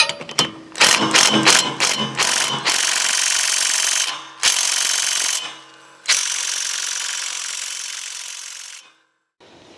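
Small impact gun hammering on the 5/8-inch crankshaft bolt of a lawn tractor's electric PTO clutch: a string of quick trigger blips, then three longer runs of hammering, the last and longest about three seconds. The bolt does not break loose; the little impact gun is not strong enough for it.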